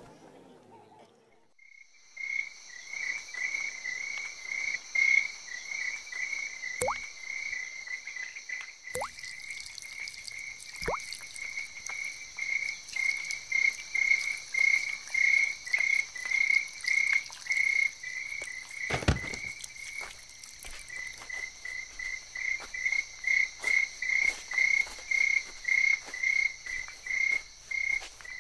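Night-time chorus of chirping insects or frogs: a chirp about twice a second over a steady high trill, starting about two seconds in. A few sharp knocks sound through it, the heaviest about nineteen seconds in.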